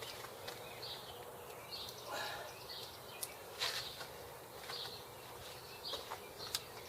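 Quiet outdoor background with scattered faint bird chirps and a few light clicks and taps.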